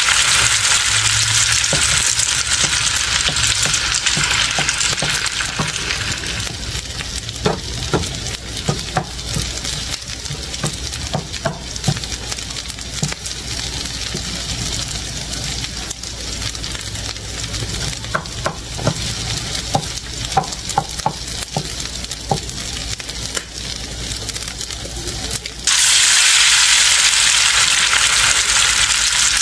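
Egg, ground meat, ham and mixed vegetables sizzling in a frying pan. From about 7 to 23 seconds a wooden spatula taps and scrapes against the pan as the egg is stirred in. The sizzle jumps suddenly louder a few seconds before the end.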